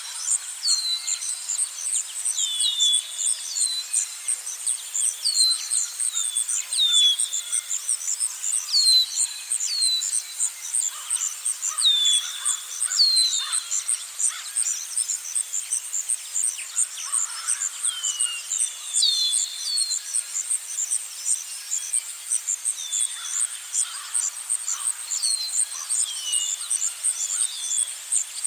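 Forest ambience: an insect, cricket-like, trills in a steady, rapidly pulsing high-pitched drone, while birds give short chirps that drop in pitch, coming every second or so.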